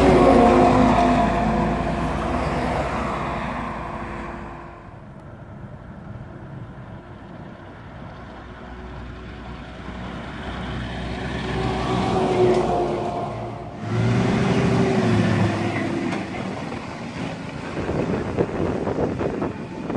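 Road traffic passing close. A vehicle goes by at the start and fades away, then a MAN articulated tipper lorry's diesel engine grows louder as it approaches and passes close with a low rumble about fourteen seconds in.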